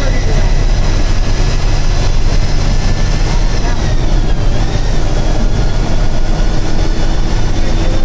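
Ashok Leyland Viking bus's diesel engine running steadily at highway cruise, heard inside the cabin as a heavy low rumble mixed with road noise. A thin high whine rides over it and dips a little in pitch about four seconds in.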